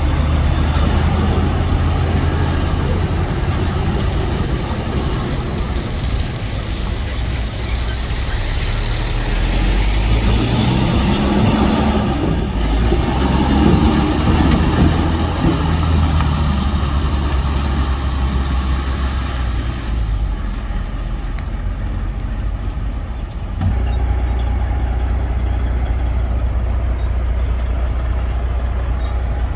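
Heavy diesel machinery engines running continuously. The engine note rises and gets louder around the middle, and the low tone changes suddenly about 23 seconds in.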